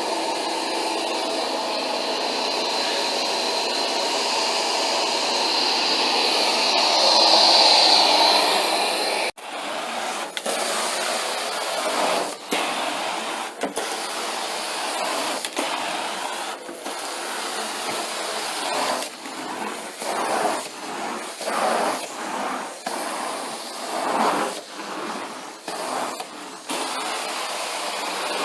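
Carpet-cleaning extraction machine running under suction: first a steady whine that grows louder, then, after an abrupt break, strokes of the cleaning wand drawn over carpet, the suction noise rising and falling about once a second.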